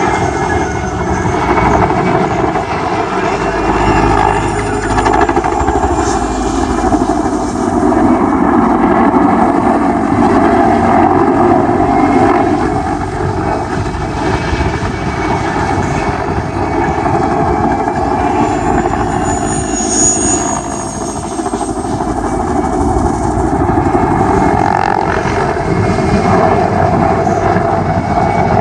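Mil Mi-2 helicopter's twin turboshaft engines and main rotor running steadily, the loudness swelling and easing slightly.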